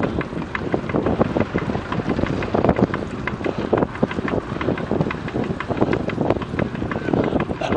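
Wind buffeting the microphone of a camera on a moving bicycle at about 20 km/h, with frequent irregular clicks and rattles throughout.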